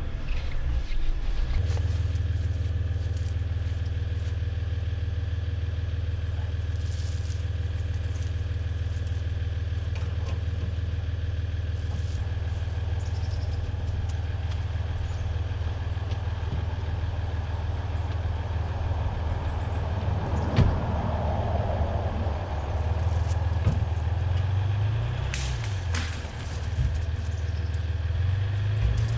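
Truck engine running steadily under load while it drags a large cedar tree out of the woods, its speed rising and falling briefly about 25 seconds in. A sharp crack and a short rush of noise come about 20 seconds in.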